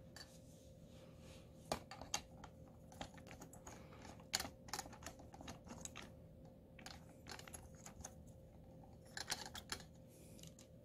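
Faint scattered clicks and taps of a small ball head being handled and screwed onto a light stand's threaded stud.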